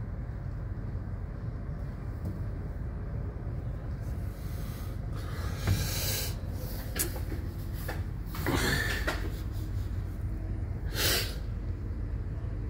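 Wind and city noise in rainy weather: a steady low rumble, with three rushing swells of noise lasting a second or two each, a few seconds in, midway and near the end.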